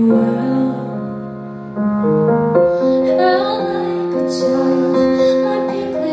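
Female singer performing a slow ballad live, accompanying herself on keyboard. Held keyboard chords fade over the first two seconds, then her voice comes back in with long, wavering sung notes.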